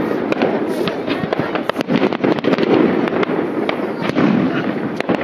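Aerial fireworks shells bursting in quick succession: a dense run of bangs and crackles over a steady low rumble.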